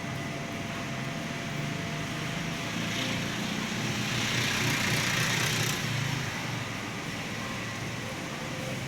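An engine running steadily with a low rumble, and a rushing noise that swells and fades from about three to six seconds in.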